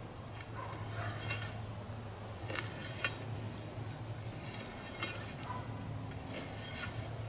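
Steel valve key turning the operating nut of a buried 6-inch gate valve, giving a few sharp metal clinks spread over several seconds as the valve is opened slowly. A steady low hum runs underneath.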